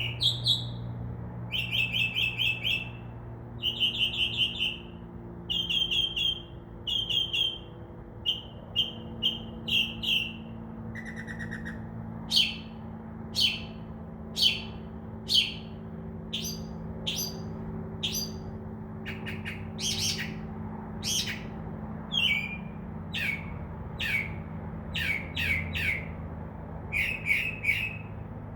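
Northern mockingbird singing at night, the male's song to attract a mate: a string of short varied phrases, each repeated several times before switching to the next, including a quick low trill and sharp rising chips. A steady low hum runs underneath.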